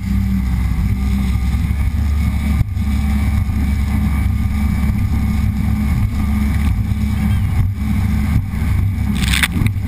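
Personal watercraft (jet ski) engine running steadily at speed, with water spray hissing around it. A brief louder rush of spray just before the end.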